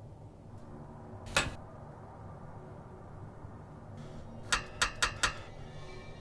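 Metal clinks of a handcuff chain against a metal bed frame: one sharp clink, then about three seconds later four quick clinks roughly a quarter second apart, over a low steady room hum.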